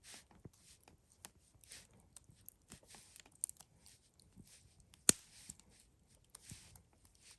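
Scattered rustling and tearing sounds with light knocks, and one sharp click about five seconds in.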